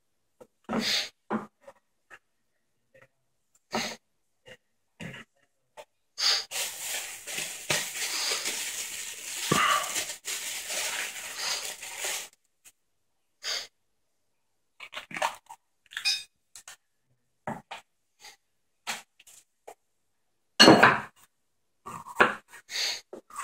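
Glock field knife cutting vegetables on a board: scattered short taps and scrapes of the blade, with a longer rustling noise lasting about six seconds in the middle.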